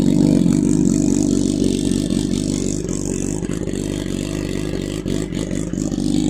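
BMW S1000 RR's inline-four running at a steady idle on a cold start, through an Akrapovič slip-on exhaust.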